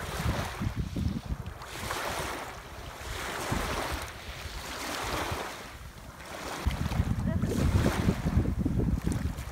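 Small waves washing in and breaking on a pebble-and-shell beach, a new wash every second or two. Wind buffets the microphone as a low rumble that gets heavier about two-thirds of the way in.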